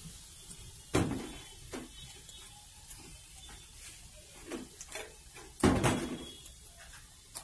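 Chilli fritters frying in hot oil with a faint steady sizzle, broken by a few sharp knocks and clatters of steel kitchenware on the steel counter, the loudest about a second in and again near six seconds.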